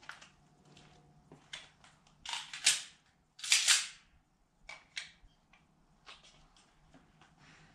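A 9mm pistol firing a quick string of shots on a drill, bunched together between about two and four seconds in.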